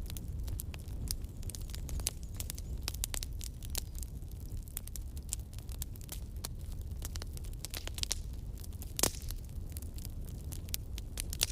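Campfire burning, with a steady low rumble and a dense stream of small crackles and pops from the burning wood; one louder pop about nine seconds in.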